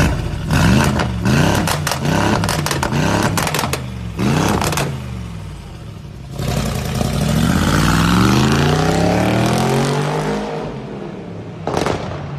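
Mercedes-AMG G63's twin-turbo V8 through a Fi Exhaust valvetronic system with catless downpipes and side-exit tips. It gives several quick throttle blips with popping and crackling as the revs drop, then a longer climb in revs as the car pulls away, falling off after, and one short rev near the end.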